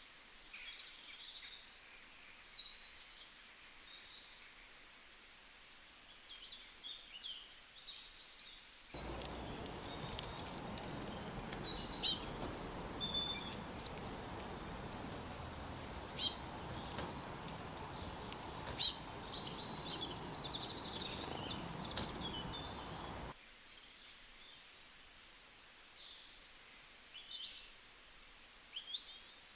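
Small birds chirping and calling, faint and high. In the middle stretch, over a steady background hiss, three loud, sharp calls stand out.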